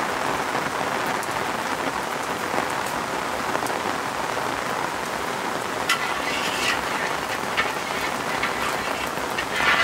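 Steady rain falling. About six seconds in and again near the end come a few short scrapes of a metal spatula against a large iron wok.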